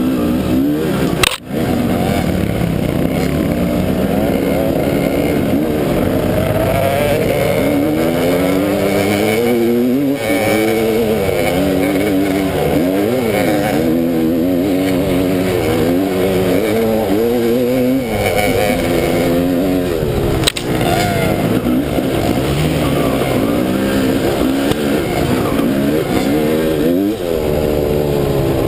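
Dirt bike engines running hard, their pitch rising and falling over and over with the throttle. The sound dips out briefly just over a second in.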